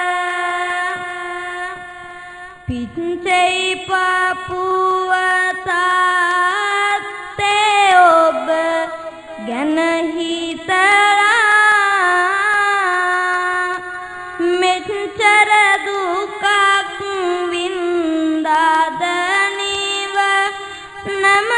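Kavi bana: a young Buddhist monk's high voice chanting Sinhala verse as a drawn-out melody, holding long notes and sliding between them, with a short breath break about three seconds in.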